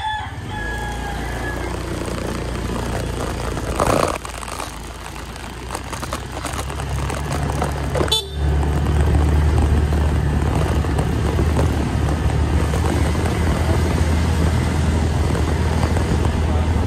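Motorcycle engine running steadily while being ridden along a road, with a brief noisy burst about four seconds in; the engine gets louder about eight seconds in.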